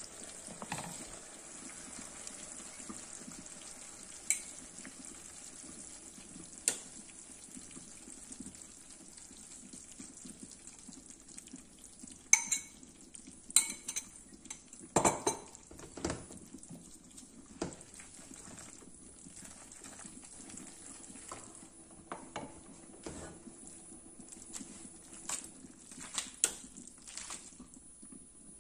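Spaghetti and pancetta simmering in a frying pan with a steady low hiss, with occasional sharp clinks of utensils on cookware. A cluster of louder clinks comes about halfway through as beaten egg is poured over the pasta, followed by softer scattered sounds of the pasta being stirred and tossed.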